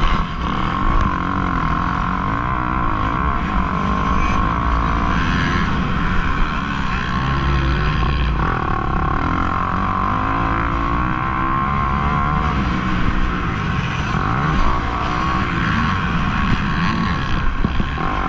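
Kawasaki KX250F four-stroke single-cylinder motocross engine, heard from on the bike, revving up and down as it is ridden hard around the track.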